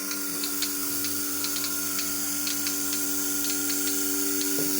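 A machine running steadily, with a hum, a hiss and irregular sharp ticking several times a second.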